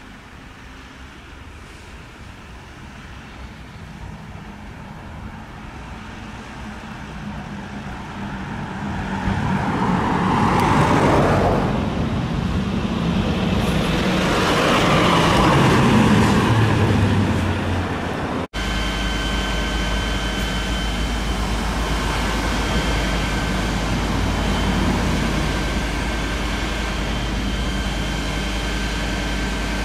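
Road traffic: vehicles swell and fade past twice, loudest about 11 and 16 seconds in. After a sudden break, a steady low engine rumble with a faint steady whine above it.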